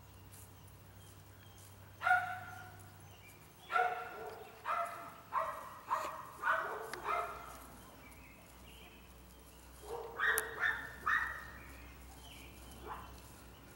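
A dog barking repeatedly: a string of about eight short barks, a pause of a few seconds, then a quicker group of four and one last bark.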